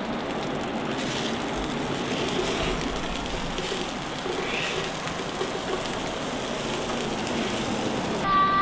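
Diced vegetables sizzling steadily on a hot flat-top griddle as they are stirred with a spatula. Near the end a steady humming tone comes in.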